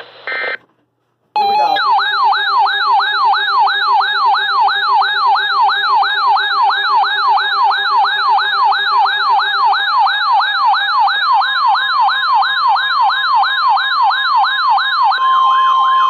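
Weather-radio alert siren: after a short silence, a loud electronic yelp that sweeps upward about three times a second. A steady alert tone just above 1 kHz comes in during the second half and sounds on alone near the end.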